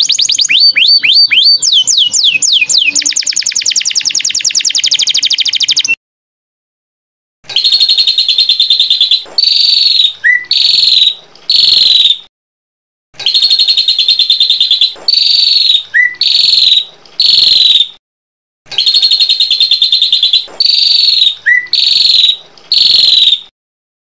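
Small songbird singing: about six seconds of rapid, repeated sweeping notes that stop abruptly. After a short pause, the same phrase comes three times over, a buzzy trill followed by three clear separate notes, with short gaps between repeats.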